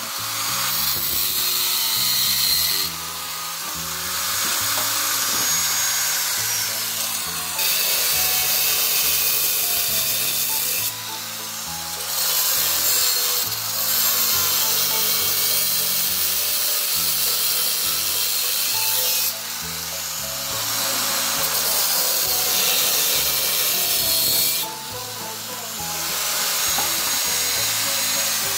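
Angle grinder cutting into a steel motorcycle fuel tank, in passes of a few seconds each with short breaks between them, under background music.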